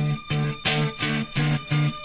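Background music: a rock track with guitar and a steady beat, about three beats a second.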